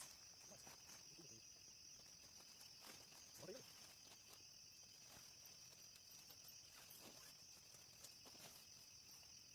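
Faint night insect chorus, a steady high-pitched trilling of crickets, with a few soft clicks and a short faint call about three and a half seconds in.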